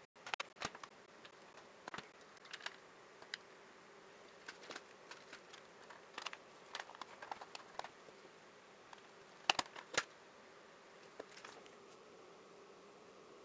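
Faint, irregular light clicks and taps of small hardware being handled, over a faint steady hum, with two sharper clicks about nine and a half and ten seconds in.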